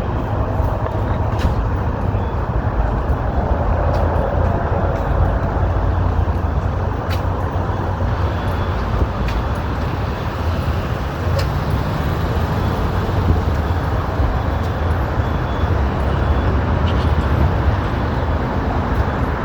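Steady road traffic on a busy city boulevard: cars and heavier vehicles passing in a continuous rush of engine and tyre noise.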